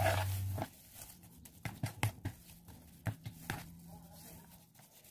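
Metal spoon mashing and stirring cooked squash in a plastic bowl, giving irregular soft knocks and scrapes of the spoon against the bowl.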